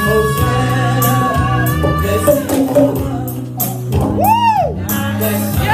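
Live gospel music: a singer holds long high notes, with a quick rising and falling note about four seconds in. The singer is backed by steady low chords and regular tambourine hits.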